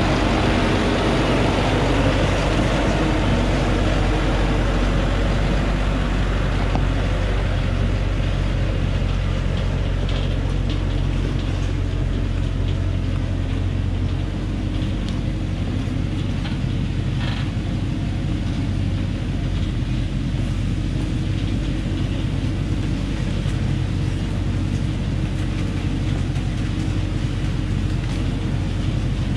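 Thaco Forland truck's diesel engine working steadily as the truck climbs a rough stony dirt track, with a constant low engine note. It is loudest in the first seconds while the truck is alongside, and a little quieter from about halfway as it moves on ahead.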